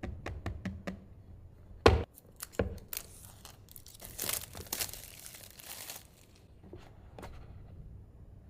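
Phone packaging being handled and torn open: a few light taps, a sharp knock about two seconds in, then several seconds of tearing and crinkling.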